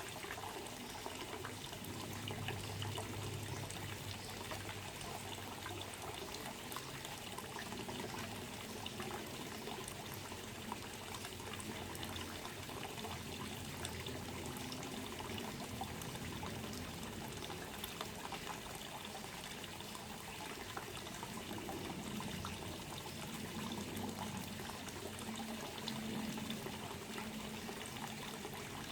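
Steady trickling, pouring water that keeps on without a break, with a faint low hum beneath it.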